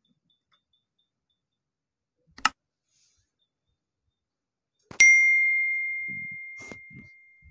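A single short click, then about two and a half seconds later one bright bell ding that rings on and fades slowly: the click-and-bell sound effect of a subscribe-button animation. Otherwise near silence.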